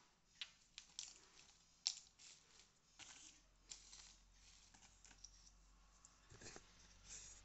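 A few sharp clicks and taps as a small glass dropper bottle and its dropper are handled and set down on a hard floor, the loudest about two seconds in, then crinkling of plastic packaging and bubble wrap.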